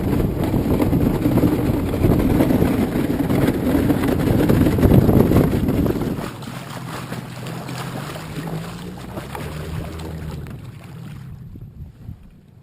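A boat's motor running with wind on the microphone. About six seconds in it drops in level to a lower, steadier hum, and it quiets further near the end.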